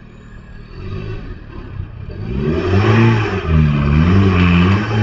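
Off-road 4x4's engine revving hard, its pitch rising and falling several times and growing louder from about a second in.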